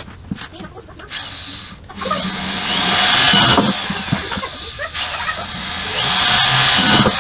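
Electric power tool run in two bursts, each with a whine that rises as it spins up: the first about two seconds in and lasting under two seconds, the second starting about six seconds in. Light clicks and knocks come before the first burst.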